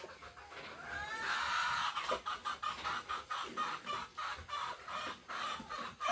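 Chickens clucking in a rapid string of short calls, starting about a second in.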